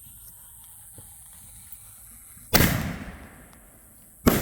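Two loud fireworks explosions, the first about two and a half seconds in and the second near the end, each sharp bang echoing away over about a second.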